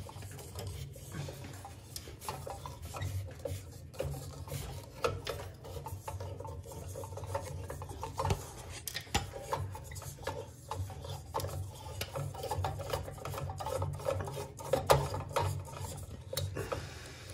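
A light bulb being screwed by hand into the socket of a recessed ceiling light fixture: irregular scraping and rubbing with small clicks throughout.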